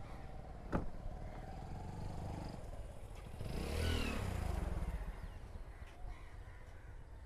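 A motor vehicle passes by, its engine sound swelling and fading away near the middle, over a steady low rumble of traffic. There is a single sharp click a little under a second in.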